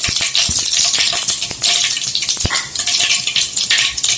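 Mustard and cumin seeds sizzling and crackling in hot oil as a tempering, with a few sharper pops among the steady crackle.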